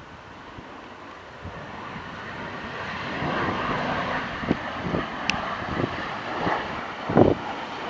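Jet engines of a Caribbean Airlines Boeing 737-800 on final approach, a steady jet noise that grows louder as the airliner comes nearer. Gusts of wind buffet the microphone several times, the strongest near the end.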